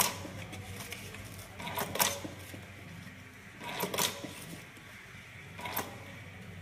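HP-241B hot-stamp ribbon batch coding machine running in auto mode, its print head striking down four times, about two seconds apart, as it stamps codes onto paper.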